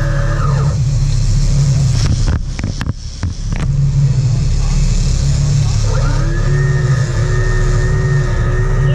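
A sport-fishing boat's engines running steadily underway with a low hum, joined by a steady whine. The whine fades out about a second in and glides back up about six seconds in. A few sharp clicks fall in a brief dip in the middle.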